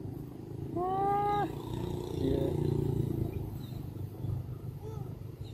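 A long-tailed macaque giving one drawn-out coo call about a second in, then quieter low sounds for about a second, and a short faint coo near the end.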